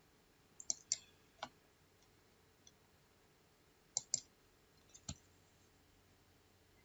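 Computer mouse clicks: a few short, sharp clicks in two small clusters, about half a second to a second and a half in and again around four to five seconds in.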